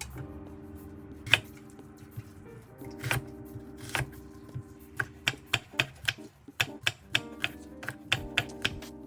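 Knife chopping on a cutting board: a few spaced sharp knocks, then a quick run of knocks at about three to four a second from about halfway in.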